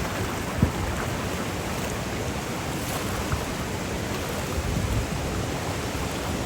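Virgin River water rushing steadily over small waterfalls, a continuous even rush, with a brief low thump about half a second in.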